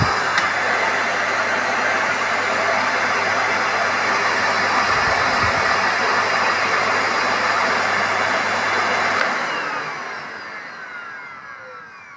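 Miele Complete C3 canister vacuum cleaner running with a steady rushing air noise and low motor hum, then switched off about nine seconds in, its motor winding down with a falling whine.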